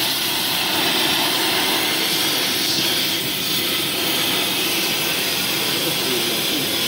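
Gas heating torch burning with a steady hissing roar, heating a seized tank suspension part to free it.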